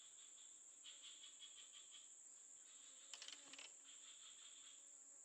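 Faint night insect chorus of crickets: a steady high-pitched drone with repeated short chirping trills, and a brief cluster of clicks about three seconds in.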